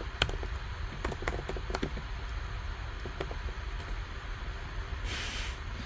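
A few scattered light clicks and taps over a steady low hum, with a short burst of hiss about five seconds in.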